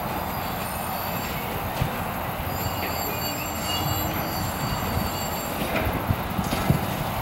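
Passenger train rolling slowly around a curve and over switches: a steady rumble of wheels on rail, with thin high wheel squeals through the middle and scattered knocks as wheels cross rail joints.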